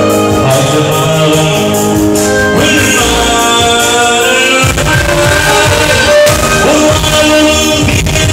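Live wedding band music played loud through a PA: a man sings into a microphone over synthesizer keyboard accompaniment. A strong low beat comes in about halfway through.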